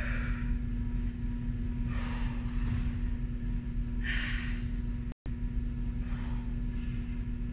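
A woman's audible breaths, one about every two seconds, as she recovers and catches her breath after exercise, over a steady low hum.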